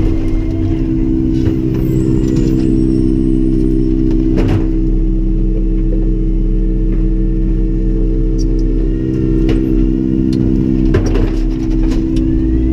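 Freightliner M2 garbage truck's natural-gas engine running steadily with a constant drone, heard from inside the cab. A sharp knock comes about four and a half seconds in and a couple more near eleven seconds, and near the end the engine pitch starts to rise.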